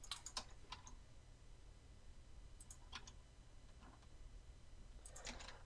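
Faint computer mouse and keyboard clicks over a low steady hum: a few in the first second, a couple about three seconds in, and a small cluster near the end.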